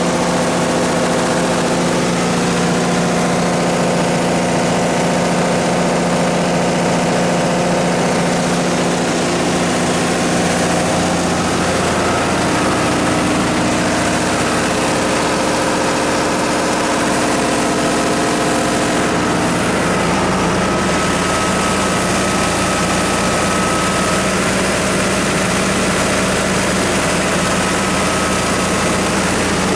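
Cummins 4BT3.9 four-cylinder diesel engine of a 60 kW generator set running steadily at constant speed, with slight shifts in its tone partway through.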